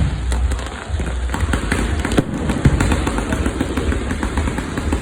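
Fireworks going off in a dense stream of rapid crackles and pops, with a few louder bangs over a steady low rumble.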